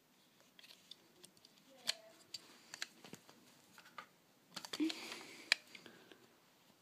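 Light plastic clicks and handling noise from a toy car's steering-wheel remote control being handled, with a denser clatter and rustle about five seconds in.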